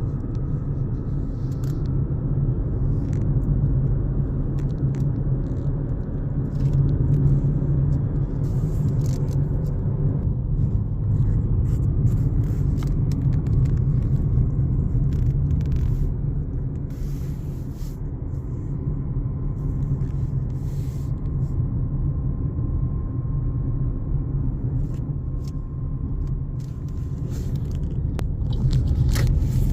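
Car on the move: steady low road and engine rumble, with scattered small clicks and knocks.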